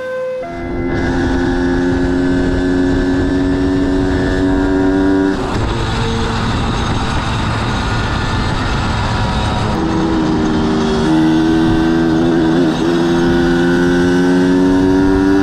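Motorcycle engine pulling under way, its pitch rising steadily for about four seconds, then dropping away to mostly wind rush, before rising again from about ten seconds in. Wind on the microphone runs throughout.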